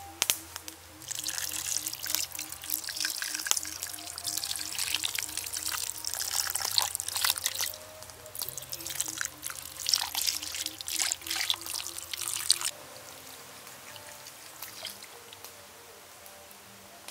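Chicken legs simmering in sauce in a steel wok, the liquid bubbling and sizzling with dense crackles. It starts about a second in and stops abruptly about four seconds before the end. Soft background music plays underneath.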